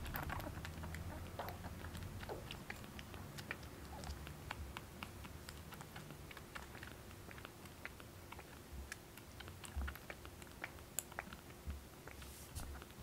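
A young kitten suckling milk from a baby-bottle nipple: faint, irregular wet clicking and smacking, several small clicks a second.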